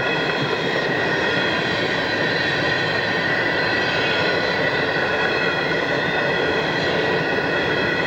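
Freight train of covered hoppers and autorack cars rolling past at speed: a steady rush and rumble of wheels on rail, with a steady high-pitched ringing over it.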